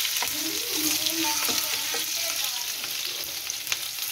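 Chopped onions sizzling in hot oil in a frying pan while a wooden spatula stirs them: a steady frying hiss with scattered small pops and crackles.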